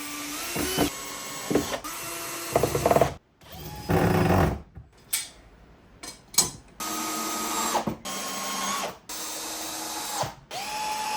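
Cordless drill driving screws in a series of short runs, about eight of them, with brief pauses between. The motor holds a steady pitch through each run.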